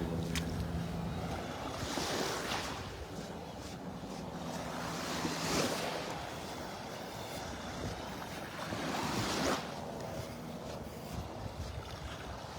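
Small Gulf waves breaking and washing up the beach, swelling and fading about every three to four seconds, with wind on the microphone. A low motor hum stops about five and a half seconds in.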